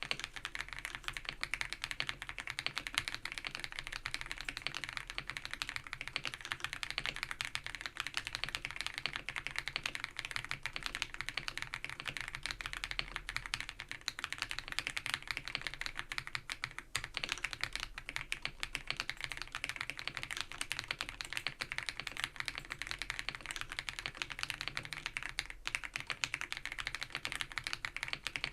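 ABKO AK100 mechanical keyboard with Baby White switches being typed on, a fast, unbroken stream of keystrokes.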